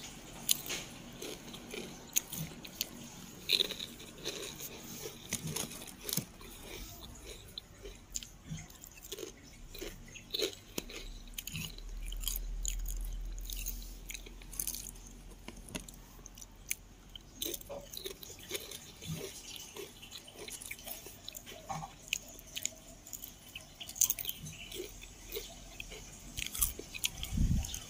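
Crisp potato chips, Calbee Honey Butter, being bitten and chewed, with many irregular sharp crunches throughout.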